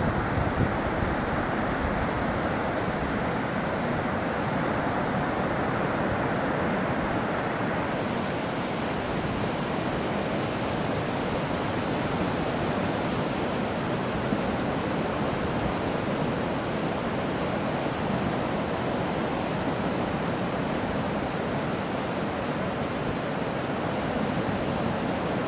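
Baltic Sea surf breaking on a sandy beach: a steady, continuous wash of waves, with wind buffeting the microphone at the start.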